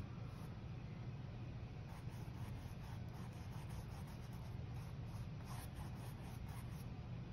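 Faint scratchy strokes of a paintbrush's bristles dragging paint across a canvas board, over a steady low hum.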